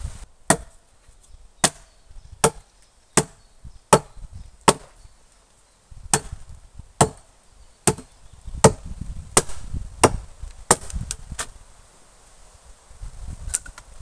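Axe chopping wood: a steady series of about sixteen sharp chops, roughly one every three-quarters of a second, with a short pause near the middle.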